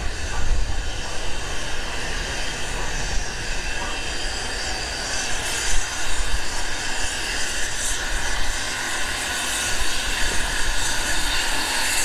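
Steam locomotive creeping into the station, with a steady hiss of escaping steam over a low rumble and a brief knock about halfway through.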